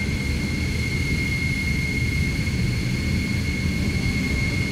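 Jet airliner engines running steadily: a low rumble under a high, even whine.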